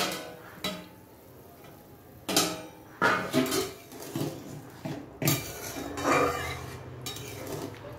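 A metal lid clattering as it is lifted off a metal kadai. Then a metal spoon clinks and scrapes against the pan in a run of knocks about half a second to a second apart as it stirs the curry and prods the potatoes to check whether they have boiled soft.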